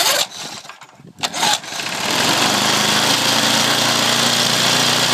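Briggs and Stratton 3.5 hp mower engine being recoil pull-started: two quick pulls, catching on the second and then running steadily. This is the test run just after the diaphragm carburetor's diaphragm and seals were replaced.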